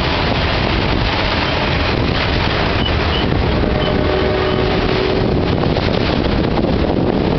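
Freight train of enclosed autorack cars rolling steadily past on the track, steel wheels rumbling on the rails, with wind buffeting the microphone.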